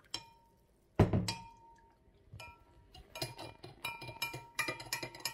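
Metal spoon stirring salt into hot water in a glass measuring jug to dissolve it for brine, clinking against the glass. One sharp, loud knock comes about a second in, then a quick run of ringing clinks in the last two seconds.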